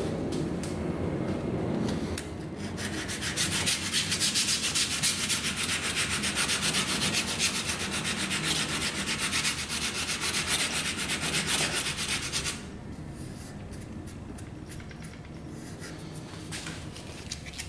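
Sandpaper rubbed back and forth by hand on the rifle's wooden forend, several quick even strokes a second, shaping the wood to blend into the nose cap. The sanding starts about two seconds in and stops after about ten seconds, leaving a few faint clicks.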